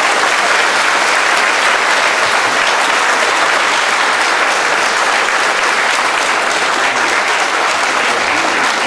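Concert audience applauding steadily, a dense even clapping that holds at the same level.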